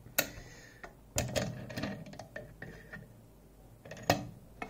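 Sharp clicks and clatter of a lock and small tools being handled and set down on a workbench: a click at the start, a run of knocks and rattles a second or so in, and another sharp knock near the end.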